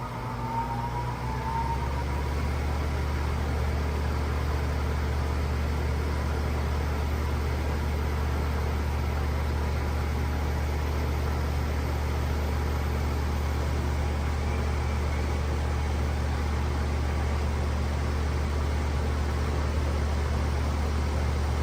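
2016 Carrier Comfort heat pump running in heat mode just after start-up: a brief rising whine in the first second, then a steady low hum with an even rush of air noise.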